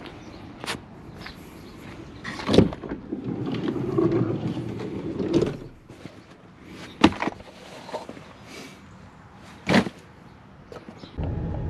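Someone moving about inside a campervan: three sharp knocks and clunks (about two and a half, seven and ten seconds in), with rustling of bags and fabric in between. Just before the end, a steady low drone of the van on the road cuts in.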